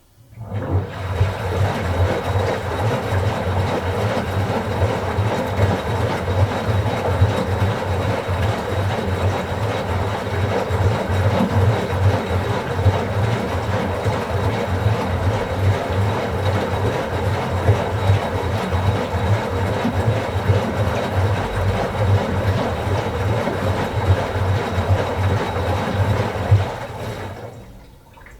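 Washing machine running, its motor turning the drum with an even, rhythmic low rumble and a wide mechanical noise above it. It starts suddenly and stops about 27 seconds later, as the drum pauses between turns of the wash cycle.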